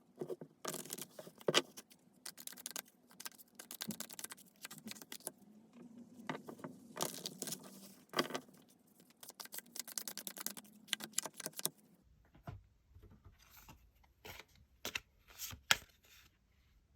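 Tarot cards being shuffled and handled: quick, dense papery clicks and rustles, turning into sparser taps and light thumps about twelve seconds in.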